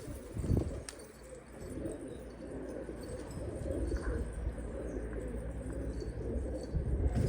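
Domestic pigeons cooing in low, continuous murmurs, with a short knock about half a second in.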